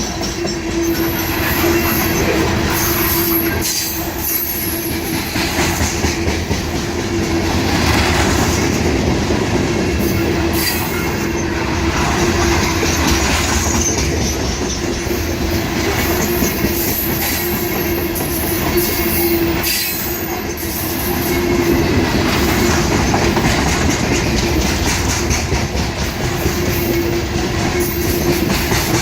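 CSX freight train cars rolling past at speed, wheels clacking over the rail joints, with a steady rumble and intermittent high-pitched wheel squeal.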